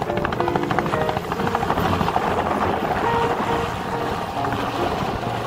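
Light two-bladed helicopter lifting off and climbing away, its rotor beating with a fast, even flutter over the steady engine noise. Music plays faintly underneath.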